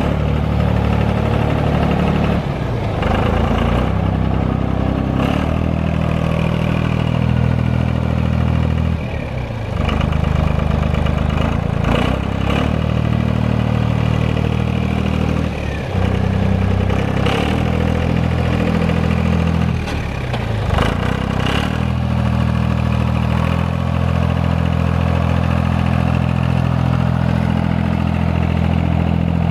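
Three-cylinder diesel engine (VM Motori 15C/3) of a Goldoni Maxter 60SN tractor running steadily. Its speed drops briefly and picks up again about three times, with a few short clatters over the engine note.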